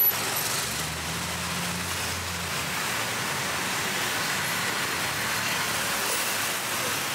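Busy city road traffic: a steady wash of passing cars and engines, with a low engine hum in the first couple of seconds.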